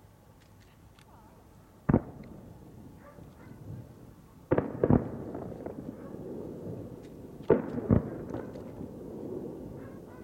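Aerial firework shells bursting: one sharp bang about two seconds in, then two pairs of bangs, each followed by a long, echoing rumble.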